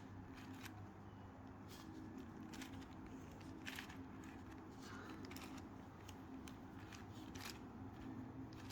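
Plastic clicks of a 4x4x4 Rubik's Cube's layers being turned by hand, short sharp clicks at irregular intervals over a low steady hum.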